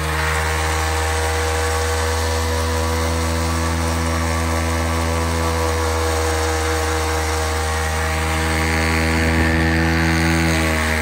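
Small motorcycle engine held at high, steady revs while the rear tyre spins against the ground in a smoking burnout.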